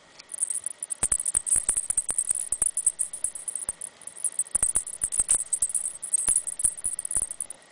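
Rapid, irregular crackling and clicking with a high rustle, easing off briefly about four seconds in and cutting off suddenly at the end.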